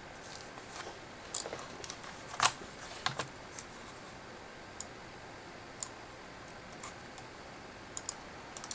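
Scattered light clicks and taps over a low steady room tone, a cluster of them in the first few seconds with one sharper click about two and a half seconds in, then a few isolated ticks.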